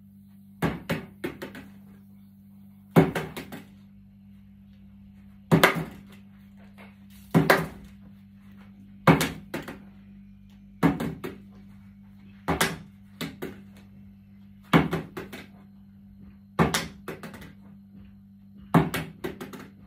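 Plastic water bottle partly filled with sugar being flipped again and again onto a wooden tabletop: each landing is a sharp thud followed by a bounce or two, coming roughly every one and a half to two seconds.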